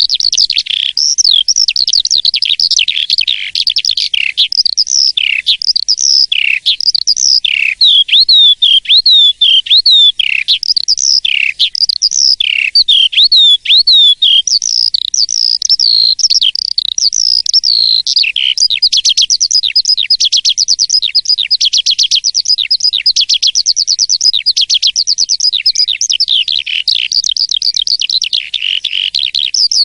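Asian pied starling (jalak suren) singing continuously: a busy stream of whistled and chirping notes, many sweeping down in pitch, that about halfway through turns into a fast run of rapidly repeated notes.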